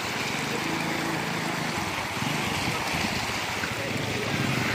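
Floodwater rushing steadily over a road, a continuous even rush of flowing water.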